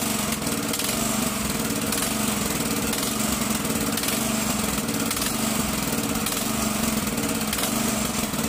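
Kisan Kraft 200 cc power tiller's single-cylinder petrol engine running steadily, warming up with its carburettor freshly cleaned and the engine now starting and running again.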